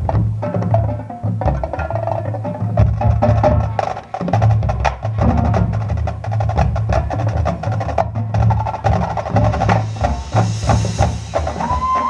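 Drum and bugle corps percussion playing a fast, busy passage: many sharp wooden-sounding clicks and drum strokes over steady low pitched drum tones.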